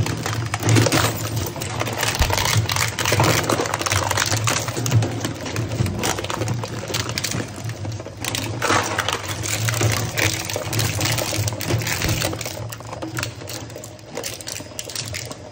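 Twin-shaft plastic scrap shredder running under load with a steady low hum, its cutter discs crunching and clattering as they tear up hard scrap pieces, with loose shredded scrap clinking and rattling. It eases off a little near the end.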